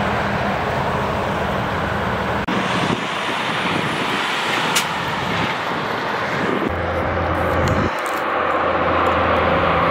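Tractor-trailers on a 6% interstate grade: diesel engines running with a steady low hum over tyre and traffic noise. The sound changes abruptly about two and a half seconds in and again near seven seconds, as a different truck takes over.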